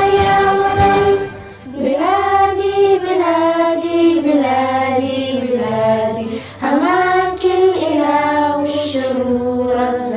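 A group of children singing a song together in one melodic line, with long held phrases over a low instrumental backing, pausing briefly for breath twice.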